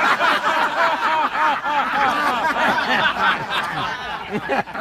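Small group of people cheering and laughing together, many voices overlapping at once.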